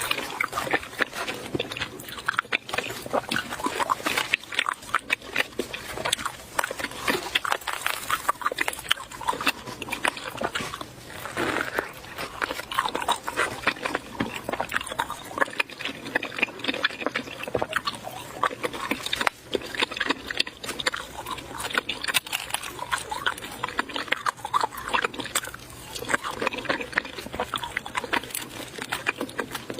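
A person eating close to the microphone: loud wet chewing, smacking and slurping, with rapid irregular clicks that go on without a pause.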